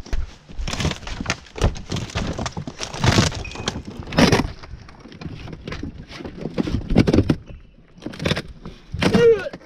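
Pieces of a wrecked RV trailer cracking and clattering as it is broken apart: a dense run of cracks and crashes over the first few seconds, then scattered knocks.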